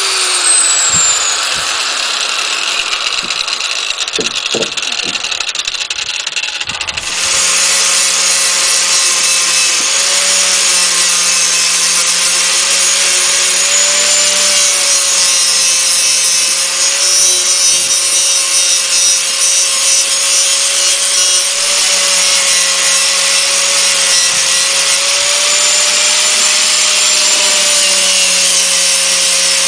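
Electric angle grinder winding down with a falling whine, then a few knocks. About seven seconds in it starts again and runs steadily, its disc grinding the edges of a small wooden cabin box, the pitch dipping slightly as it bites.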